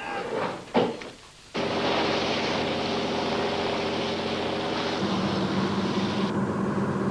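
A motor boat's engine running steadily, cutting in suddenly about one and a half seconds in after a few brief, faint sounds.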